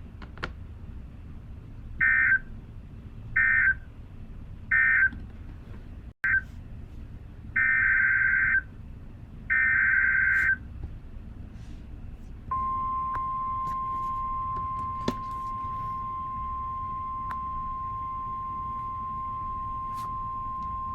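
NOAA Weather Radio alert signals. First comes a string of short two-tone digital data bursts, the SAME codes, which close one warning and open the next: four short bursts, then two longer ones. About halfway through, the steady single-pitch 1050 Hz weather radio warning alarm tone begins and holds to the end.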